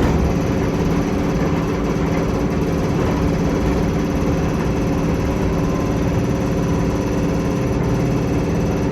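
Chichibu Railway 6000 series electric train running, heard from inside the carriage: a steady rumble of wheels on rail with an even, multi-tone hum underneath.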